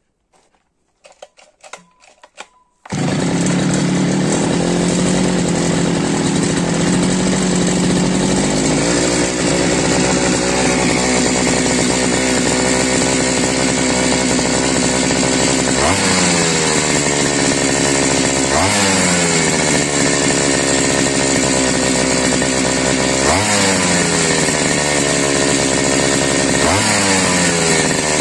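Chinese two-stroke brushcutter engine, refitted with a 43 cc cylinder in place of its 52 cc one, cold-starting after a few faint clicks about three seconds in and then running steadily at high speed. Later it is revved four times, each time rising in pitch and falling back. The owner says it runs well, with good compression.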